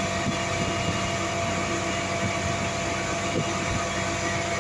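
Asphalt paver's diesel engine running steadily at an even pitch.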